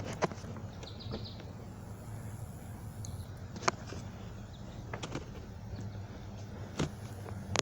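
Background ambience: a steady low hum, a brief high chirp about a second in, and four short sharp clicks spread out over the seconds.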